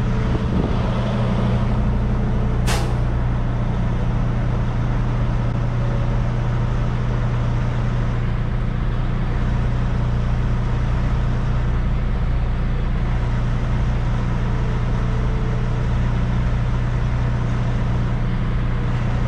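Semi truck's diesel engine idling steadily, with one sharp click about three seconds in.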